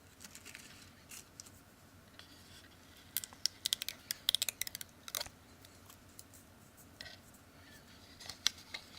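A small tool scraping and picking leftover double-sided adhesive tape off a phone's frame: quiet scratching with bursts of quick little clicks, busiest from about three to five seconds in and again near the end.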